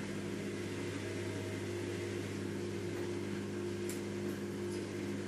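A steady low mechanical hum made of several constant tones, with a couple of faint ticks about four seconds in.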